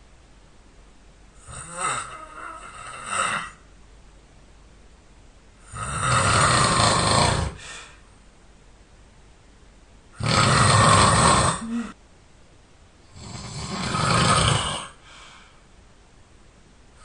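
A person snoring in sleep. A softer, broken breath comes about two seconds in, then three long snores follow a few seconds apart, each lasting a second and a half or more.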